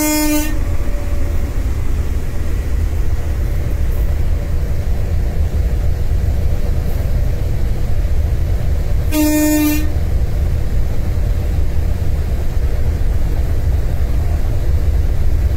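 Locomotive horn sounding two short blasts, one at the start and another about nine seconds in, over the steady low running rumble heard inside a moving locomotive cab.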